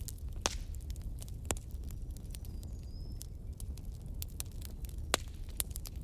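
Wood fire burning in a fireplace: a steady low rumble of flame with scattered sharp crackles and pops, three louder pops, the loudest about five seconds in.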